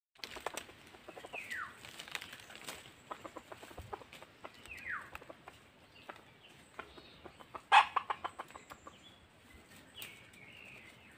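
Red junglefowl roosters in dry leaf litter: short falling calls and clucks over scattered rustling and ticking in the leaves. A loud sudden burst about eight seconds in is followed by a quick run of strokes.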